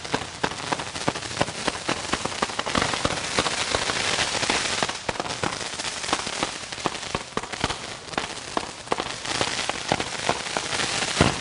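Consumer multi-shot firework cake of about 40 shots firing in quick succession: a dense, unbroken run of sharp pops with crackling between them.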